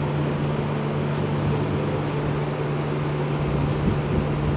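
Steady low machine hum, unbroken, with one strong low tone and no starts, stops or changes in speed.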